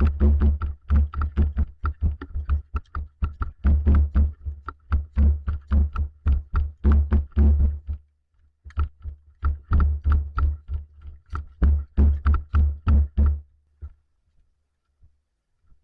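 Footfalls of a player running, thudding through a body-worn camera at about three steps a second; they pause briefly past the middle and stop near the end.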